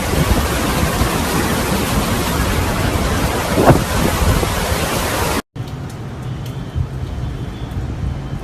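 Hurricane wind and driving rain buffeting the microphone as a dense, steady rushing noise. It cuts off abruptly about five and a half seconds in, giving way to a much quieter steady low rumble.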